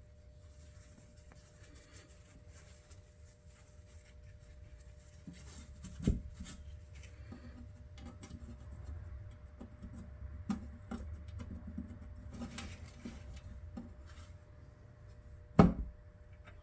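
Small parts and tools being handled and rubbed on a workbench during reassembly, with scattered light knocks. Two louder sharp knocks come about six seconds in and near the end.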